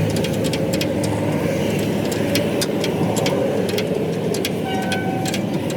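A vehicle engine running steadily, with many sharp, irregular clicks over it and a brief steady tone a little before the end.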